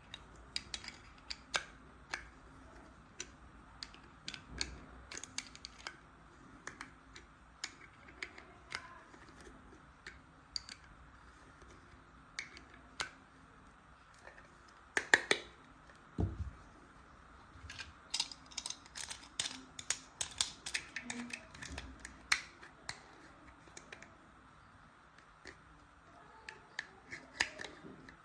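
Small plastic toy tool pieces being handled and fitted together: a long run of scattered sharp clicks and taps, thickening into a quick flurry of clicks partway through, with one low thud about halfway.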